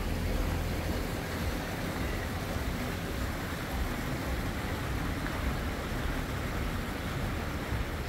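Steady outdoor background noise: a low rumble under an even hiss, with no distinct events.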